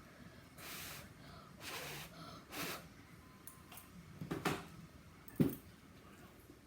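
Someone eating at a plate with a fork: a few short breathy puffs close to the microphone, then sharp clicks of the fork against the dish, a quick cluster about four and a half seconds in and a single one about a second later.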